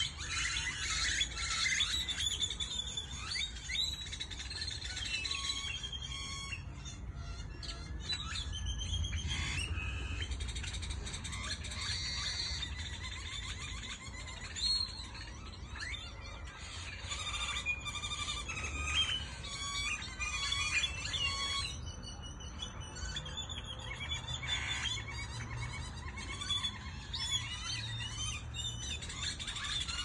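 A large number of small birds chirping at once in dense trees, a continuous chatter of many short, overlapping chirps and quick whistled notes.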